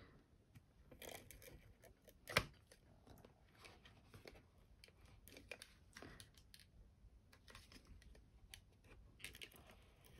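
Faint rustling and creasing of cardstock as hands fold and press the glued edges of a paper box, with one sharp tap about two and a half seconds in.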